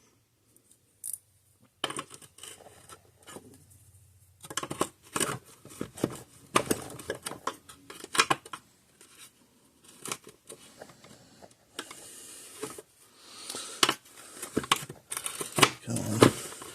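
Irregular clicks, knocks and scraping of hand tools and small parts being worked on a fence charger as it is taken apart, coming in clusters after a quiet first couple of seconds.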